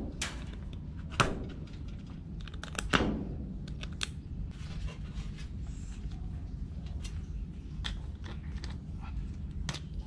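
Barnacles being pried and scraped off a sea turtle's shell with a small tool: sharp cracks and snaps, the loudest about a second and three seconds in, among quieter clicks and scrapes. A steady low hum runs underneath.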